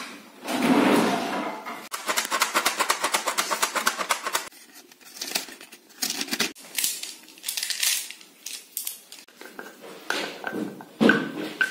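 Close-up scratching and tapping of art materials being worked by hand: a rush of noise, then a quick run of scratchy strokes about ten a second for a couple of seconds, then scattered scrapes and taps.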